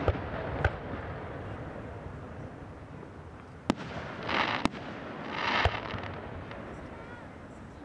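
Aerial firework shells bursting in the distance: about five sharp bangs, each trailed by a rolling rumble. Twice a hiss swells up and ends in a bang.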